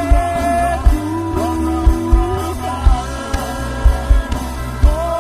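Live rock band playing: bass and drums keeping a steady beat, with a singer holding long notes over guitar.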